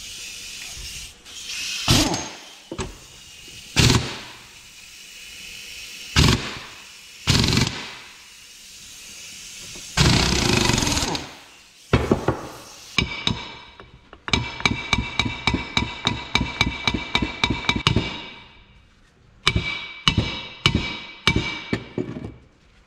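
Impact wrench firing in short bursts on the 1.5-inch castle nut of a tractor differential's pinion yoke, with one longer run about ten seconds in. Then comes a long run of rapid hammer blows, about six a second, ringing on the steel yoke as it is knocked at, and a few more scattered blows near the end: the yoke won't come loose.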